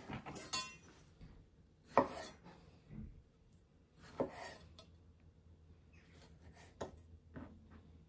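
A chef's knife cutting peeled tomatoes and tapping down on a wooden cutting board: a handful of separate strokes, a second or two apart, the loudest about two seconds in.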